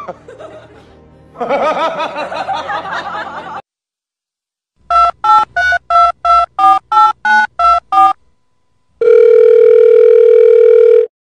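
Telephone keypad tones: about a dozen quick beeps, roughly four a second, as the Pomeranian's paw pads are pressed like buttons, then one steady phone tone lasting about two seconds. They are preceded by a wavering voice-like sound in the first few seconds.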